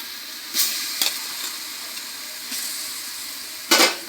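Onions and whole spices frying in hot oil in a pot: a steady sizzle that flares up a few times as ground garlic paste goes in and is stirred, with a brief loud burst near the end.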